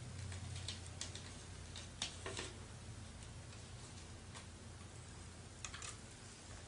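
Irregular light clicks and taps of memory modules and a riser card being handled during a RAM install, over a steady low hum.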